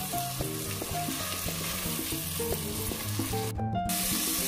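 Beaten egg with chopped onion, tomato and green chili sizzling in hot oil in a pan as a spatula stirs it to scramble. The sizzle drops out for a moment about three and a half seconds in.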